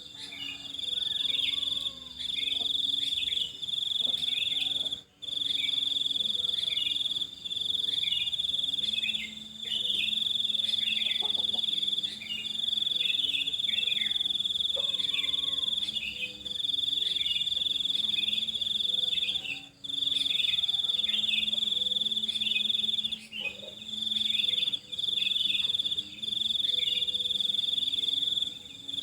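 A continuous high-pitched insect trill, cricket-like, breaks off briefly every few seconds. Under it, small birds give many quick, short chirps.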